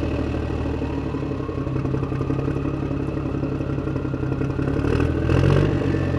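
Car engine running at a steady idle, with a brief rise in revs about five seconds in.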